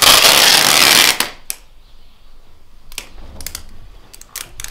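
Brown packing tape ripped off its roll in one loud, screeching pull lasting about a second. Then come scattered crackles and clicks as the tape is handled and pressed onto a window frame.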